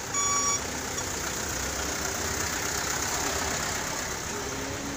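A short, loud electronic beep, then the steady running of truck and car engines in slow-moving traffic.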